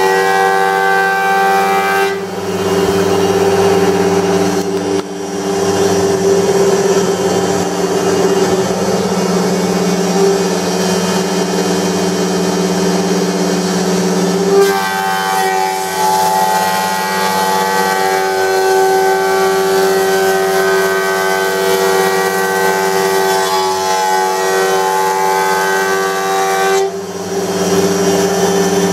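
Wood-Mizer planer running with a steady, humming tone. Its higher overtones drop away about two seconds in, come back about halfway through, and fall away again near the end.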